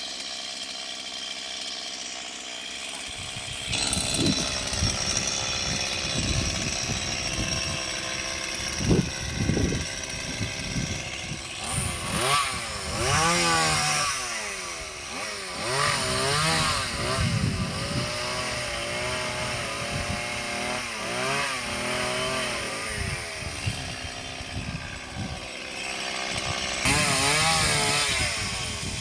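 Mini chainsaw running and cutting tree branches. It gets louder about four seconds in, and further on its pitch repeatedly dips and recovers as the chain bites into the wood.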